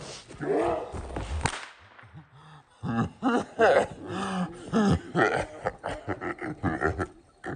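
Young men laughing hard in rapid, breathless bursts, with one sharp pop about a second and a half in.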